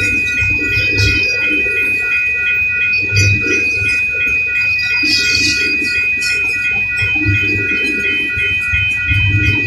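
Railroad crossing warning bell ringing steadily and rapidly over the low rumble and clatter of empty coal train cars rolling through the crossing.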